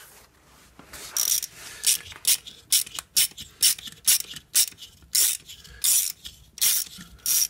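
Hand ratchet clicking in quick short strokes, about three clicks a second, starting about a second in, as it turns a thread tap into a stripped bolt hole in a Honda engine block to cut new threads for a Heli-Coil insert.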